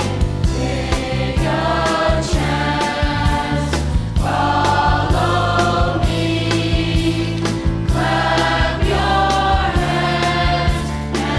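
Upbeat gospel song with a choir singing over a band, with a steady bass and drum beat.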